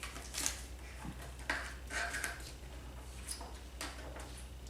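Quiet handling of papers and game cards: a few brief rustles and light taps over a steady low hum.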